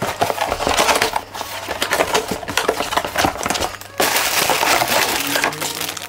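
Cardboard product box being opened by hand, the cardboard and packaging crackling and crinkling with many small cracks, denser about four seconds in.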